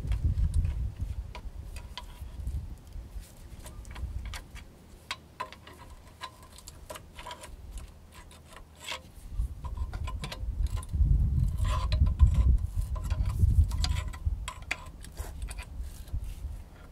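Ratchet wrench clicking in short runs as it turns out the brake caliper bolts, with metal clinks as tools and parts knock together and a low rumble partway through.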